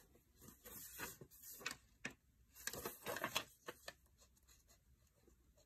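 Faint rustling and sliding of a sheet of paper being handled, then a ballpoint pen scratching across it as it is tried out.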